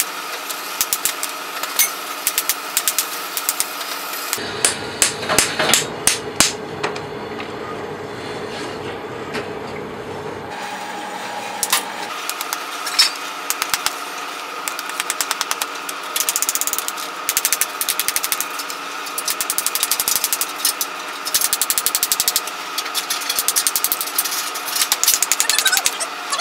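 Rapid, irregular knocks and crunches of a heavy metal bar pounding spent plaster casting investment in a tray, breaking the set plaster into chunks and crumbs, over a steady hum.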